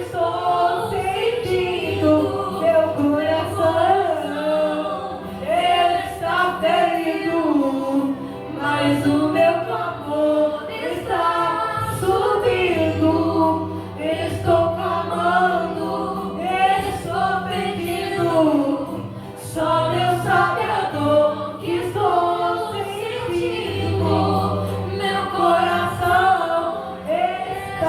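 Voices singing a gospel worship song, with a sustained low bass accompaniment underneath.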